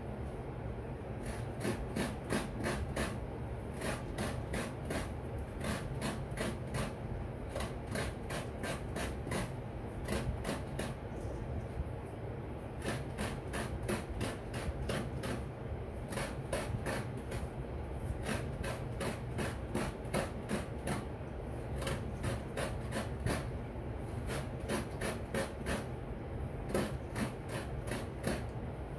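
A halved coconut scraped by hand on the serrated metal blade of a coconut grater stool (kudkuran), grating out the fresh meat. It makes rhythmic rasping strokes, about three a second, in runs with brief pauses while the shell is turned.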